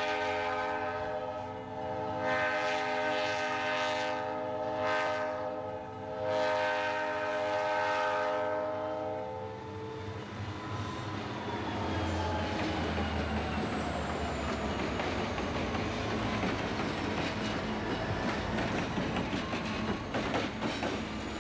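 Diesel freight locomotives approaching a grade crossing: the lead unit's air horn sounds in several blasts for about the first nine seconds. Then the lash-up of EMD and GE diesel units passes close by with engine rumble and a whine that falls in pitch, and near the end the wheels click over the rail joints.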